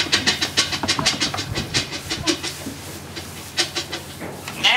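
Lambs scrambling in a straw-bedded pen: a fast, rapid clatter of small hooves on wooden pallet hurdles and straw, busiest in the first couple of seconds and then scattered. A lamb starts a loud bleat right at the end.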